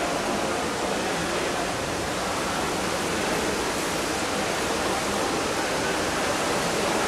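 Steady rushing water noise heard through a camera submerged in a swimming pool.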